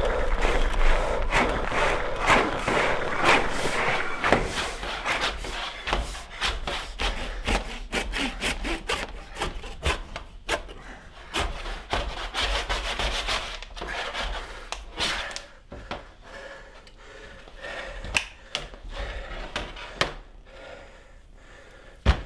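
Quick, repeated rasping strokes, dense at first and then coming apart and growing quieter, with one sharp knock near the end.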